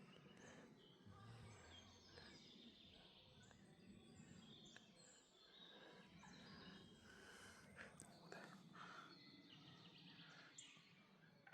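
Faint chorus of several songbirds chirping and trilling at once, with a low background hush.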